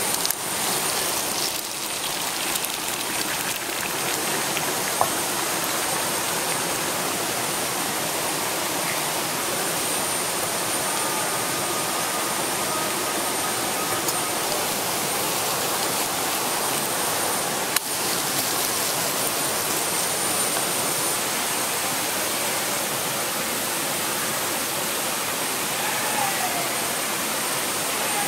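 Steady rush of flowing river water, with a thin high insect drone running through it.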